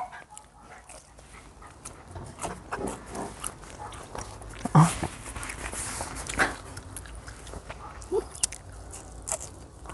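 A small dog whimpering in a few brief cries, begging for food, over close eating and chewing sounds.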